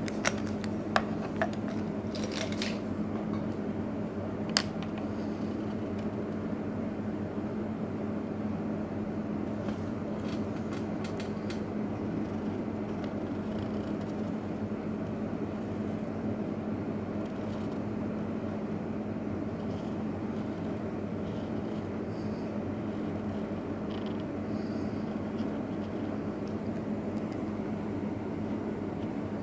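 Felt-tip marker scratching on paper in short strokes over a steady background hum. A few sharp clicks come in the first few seconds.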